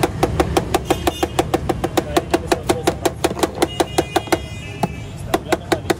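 Rapid, rhythmic metallic tapping, a utensil struck again and again against the rim of a large metal pulao serving tray, about seven ringing taps a second. The tapping stops briefly about four and a half seconds in, then starts again.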